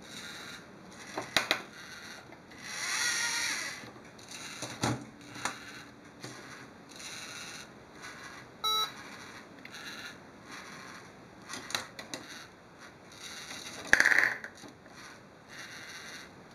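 LEGO Mindstorms NXT servo motors whirring in short runs as the robotic arm swings and lifts, with sharp clicks and knocks from the plastic Technic parts. A short electronic beep sounds about halfway through, and a brief, louder burst comes near the end.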